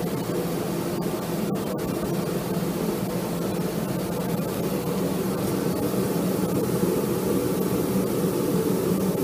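Flatbed laser cutter running while it cuts a sheet of black ABS plastic: a steady, even whooshing drone of its fans and air blowers with a low hum under it.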